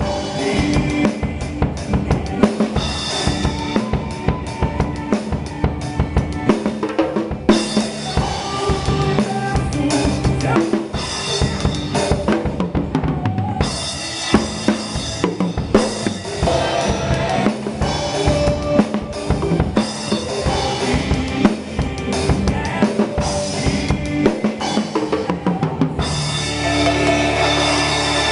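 Forró gospel band music without vocals, driven by a busy drum kit: steady bass drum, snare and rimshot hits under the other instruments.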